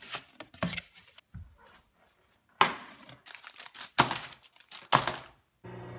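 Crinkling of a plastic wrapper around a microwave burger, in loud bursts, after a few sharp clicks of paper plates being handled. Near the end a microwave oven starts running with a steady hum.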